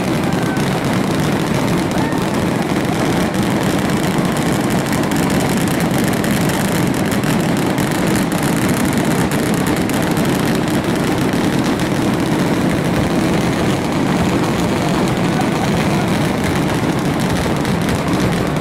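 Dense fireworks barrage: so many shells bursting at once that they blend into a continuous rumble, with rapid crackling over it.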